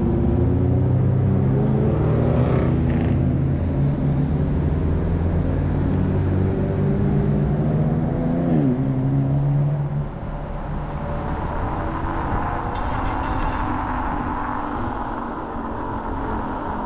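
Wind and road noise from riding a Kaabo Wolf King GT electric scooter in city traffic, heard through a chest-mounted action camera, with nearby car engines running. The low engine rumble eases off about ten seconds in, leaving mostly wind and tyre noise.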